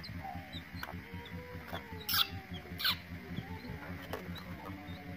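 A young chick peeping: two loud, sharp peeps about two and three seconds in, with fainter short chirps scattered between them.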